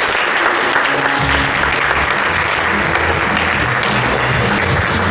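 Audience applauding steadily, over background music whose low bass line comes in about a second in.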